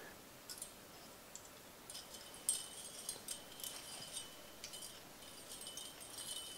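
Faint small ticks and rustles of a thin-wire Christmas light string being handled and pulled along a metal bicycle frame, becoming more frequent from about two seconds in.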